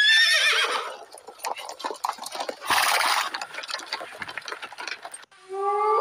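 Horses galloping and neighing: a loud whinny falling in pitch at the start, hoofbeats through the middle and another loud burst about three seconds in. Near the end, wolves begin howling together in long held tones.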